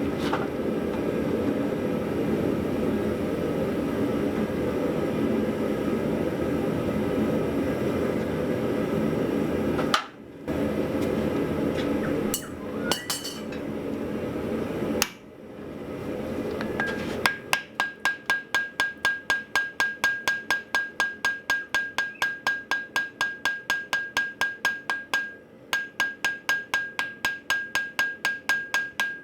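A steady roar for the first half, then a hammer striking hot steel on an anvil in a fast, even run of blows, about three or four a second, with a steady ring over them and a brief pause partway through. The blows are forge-welding the fluxed face back onto a broken hammer head.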